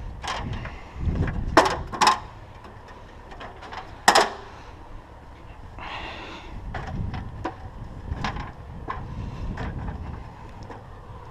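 Several sharp knocks and clanks from hands-on work, the loudest a little after a second and a half, at about two seconds and at about four seconds, over a steady low rumble.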